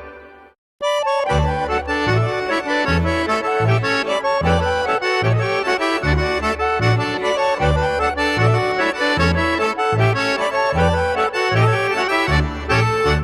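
Background accordion music in a traditional folk style with a steady bass beat; it drops out briefly about half a second in, then starts again.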